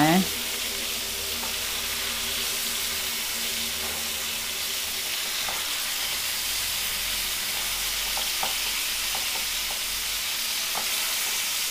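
Masala-coated fish pieces sizzling steadily in hot oil in a nonstick frying pan, with a few light taps and scrapes of a spatula as the pieces are turned, mostly in the second half.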